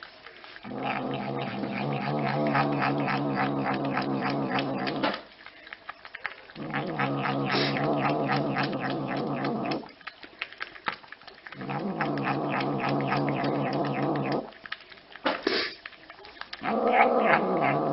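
A cat growling and yowling in long, low, drawn-out calls, four in a row, each several seconds long, with short pauses between them: the warning growl of an agitated cat squaring off.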